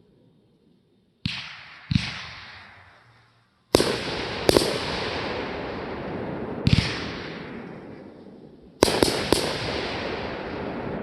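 Fireworks going off: a series of sharp bangs, some alone and some in quick pairs or threes, each trailing off in a long echo.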